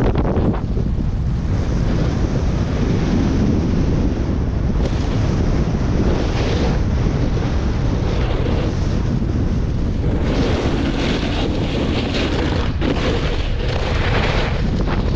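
Wind rushing over a body-mounted action-camera microphone while snowboarding fast down a groomed run, a steady loud roar. The board's edges scrape over firm, packed snow, with harsher hissing scrapes in the turns near the end.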